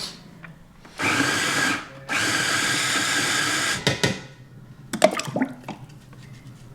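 A small electric motor runs in two bursts, the first about a second long and the second nearly two seconds, followed by a few clicks and knocks.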